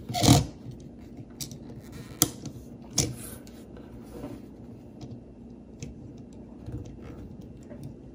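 Plastic Lego pieces being handled and pressed onto a small Lego car, with a few sharp clicks and taps, the clearest about two and three seconds in, and faint scattered ticks between them.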